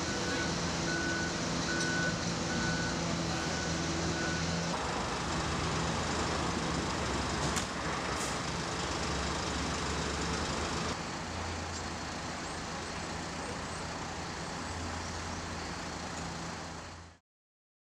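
Heavy truck engines running amid street traffic noise, with a truck's reversing alarm beeping steadily for the first few seconds. The sound shifts abruptly twice and fades out near the end.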